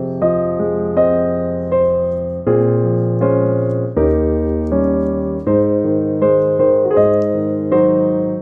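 Slow, gentle solo piano music: chords struck about twice a second, each fading away before the next.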